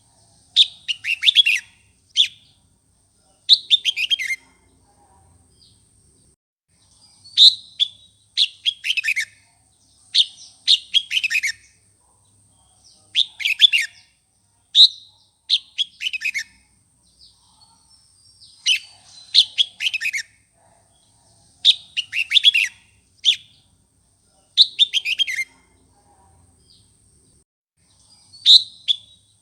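Red-whiskered bulbul singing loud, fired-up phrases of quick falling chirps, one every second or two. It is the aggressive song played to provoke newly caught bulbuls into singing.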